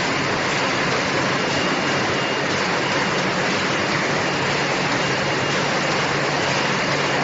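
Depalletizer can line running: a steady, dense clatter of empty metal cans jostling against one another as a conveyor belt crowds them into a single-file track, over the running of the conveyor machinery.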